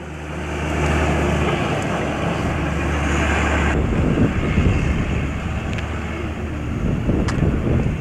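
Wind buffeting a camcorder microphone outdoors: a loud, rough rumble and hiss with a steady low hum in the first half, which gives way to gustier rumbling about halfway through, with a couple of faint clicks near the end.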